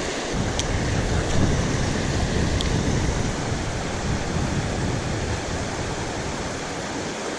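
Steady rush of a shallow river riffle flowing over rocks, with a low, uneven rumble over the first few seconds.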